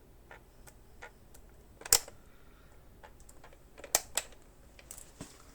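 Scattered light clicks and taps of small parts being handled, probably the blown cartridge fuse and the tester leads, with the sharpest click about two seconds in and two more close together near four seconds.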